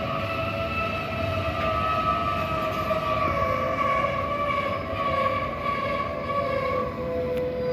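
Electric train running with a steady multi-tone motor whine that slowly falls in pitch, over a low rumble.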